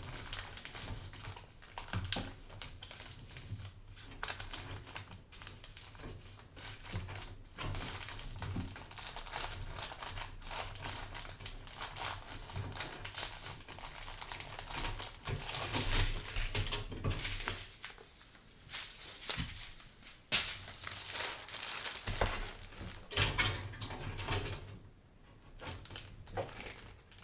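Hands handling computer parts and their packaging: irregular clicks, taps and plastic crinkling.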